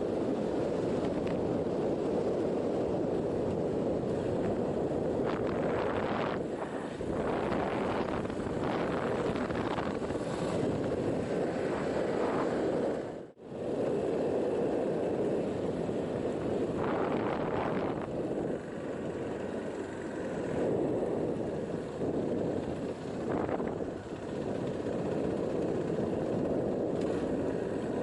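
Steady wind rush buffeting the microphone with a vehicle engine running underneath, typical of riding footage on a touring motorcycle. The sound cuts out for an instant about halfway through.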